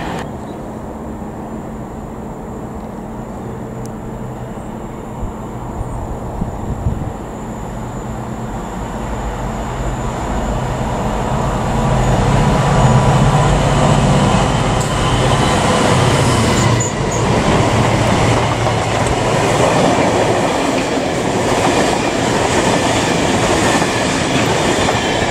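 A Class 66 diesel freight locomotive, with its two-stroke V12 engine, approaches and passes close by with a train of freight wagons. The engine drone grows louder up to about twelve seconds in. Then the wagons rumble past on the rails.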